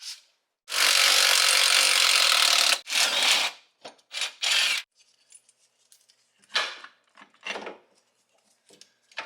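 Impact wrench running hard for about two seconds, then in three short bursts, backing out the rear hub's T55 retaining bolts. Scattered quieter knocks follow near the end.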